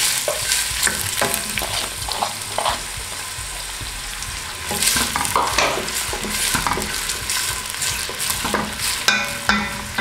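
Chopped red onions sizzling in hot oil in a stainless steel pot, stirred with a wooden spoon that scrapes across the pot's bottom. A couple of sharp knocks near the end.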